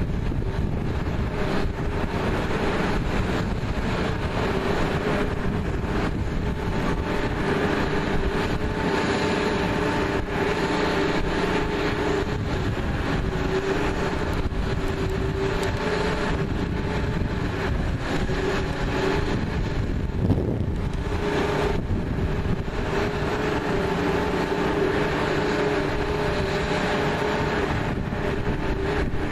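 Fire apparatus engines running steadily to pump water to the hose lines and the aerial platform's stream: a constant mechanical hum over a steady rushing noise.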